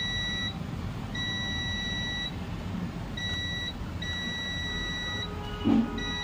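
UNI-T UT33D+ digital multimeter's continuity beeper sounding a steady high beep in stretches of about a second, stopping and starting as the probes touch and leave points on a laptop motherboard; the beep marks a near-zero reading, the sign of a short. One brief louder sound about five and a half seconds in.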